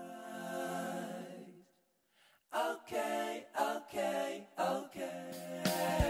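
A cappella singing as background music: voices hold a long note, break off for a moment about two seconds in, then go on in short sung phrases.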